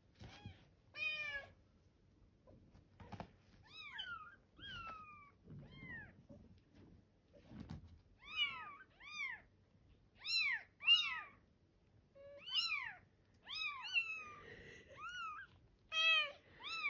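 Bengal kittens mewing over and over: short, high-pitched mews, each rising then falling in pitch, coming faster and louder in the second half, with soft rustling in between.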